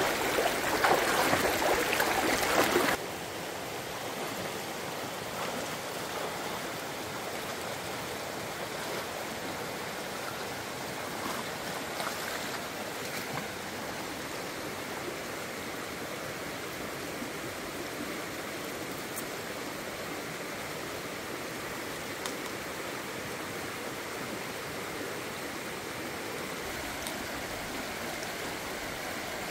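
Steady rush of running water, louder for about the first three seconds, then dropping suddenly to a quieter, even level, with a few faint ticks.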